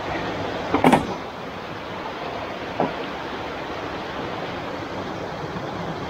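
Mountain stream rushing over rocks, a steady wash of water. A short cluster of knocks about a second in stands out as the loudest sound, with a lighter click near three seconds.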